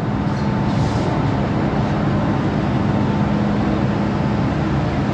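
Inside a Metro-Cammell M-Train electric multiple unit car on the move: steady running noise from wheels, bogies and traction equipment, with a constant low hum over it.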